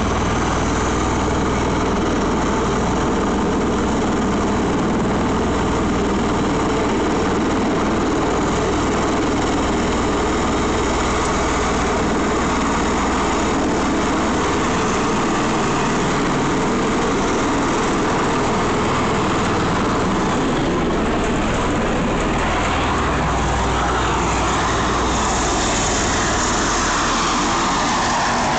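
Bell Boeing V-22 Osprey tiltrotor's twin turboshaft engines and proprotors running steadily on the ground in helicopter mode, then lifting off. Near the end, a whine falls in pitch as the aircraft climbs past.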